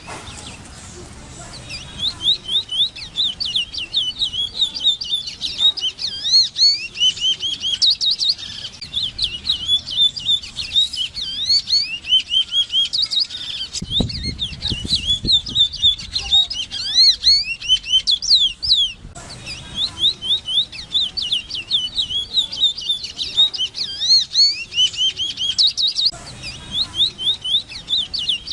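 Large-billed seed-finch (Sporophila crassirostris) singing: long, fast runs of rapidly repeated high sliding whistles. The song starts a couple of seconds in, breaks off briefly about two-thirds of the way through, then resumes.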